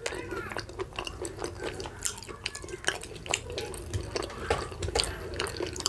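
Close-miked wet eating sounds: chewing with many small, irregular wet clicks, and fingers scooping and mashing through soft boiled cocoyam and oily pepper dip.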